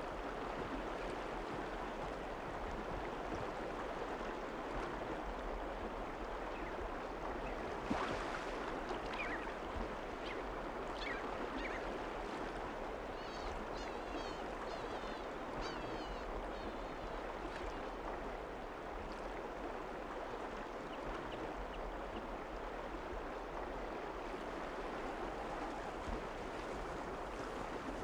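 Steady rush of flowing river water, with a few faint, short, high bird calls and a quick run of chirps about halfway through.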